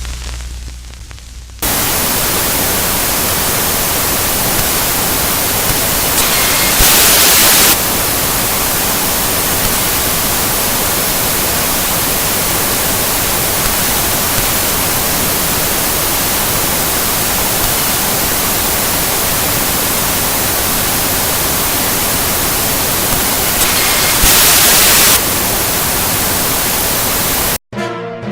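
Old analog TV static: a loud, steady hiss of white noise with no tone in it, swelling briefly twice. It starts abruptly after a faint low hum and cuts off suddenly just before the end.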